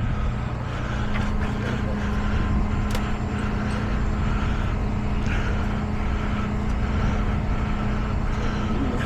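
Tow truck engine running steadily, with a steady low hum that sets in right at the start and holds without change.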